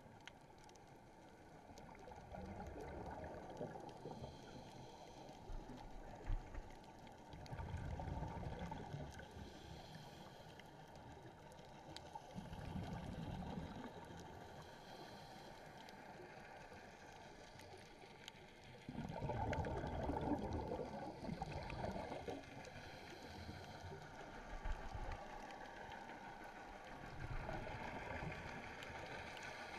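A scuba diver's exhaled bubbles from the regulator, heard underwater. They gurgle in about five bursts a few seconds apart, each two to three seconds long, one breath after another.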